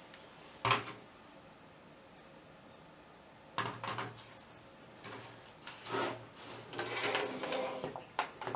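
Hard plastic Amiga 1200 case parts and a floppy drive being handled on a tabletop: one sharp knock under a second in, a quiet stretch, then a few seconds of rubbing, scraping and knocking as the drive is pressed into place and the case halves are fitted together.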